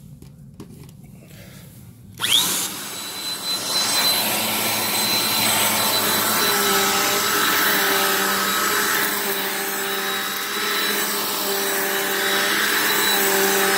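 Bissell PowerForce Compact upright vacuum switched on about two seconds in, its motor spinning up quickly with a rising whine and then running steadily with a high whine.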